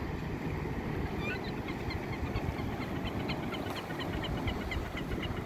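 Wind on the microphone and small waves slapping around a kayak, with a bird giving a rapid series of short high chirps, about three or four a second, from about a second in.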